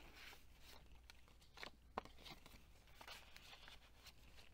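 Faint rustling of paper and card as handmade journal pages and a tag in an envelope pocket are handled, with a few light taps, the sharpest about two seconds in.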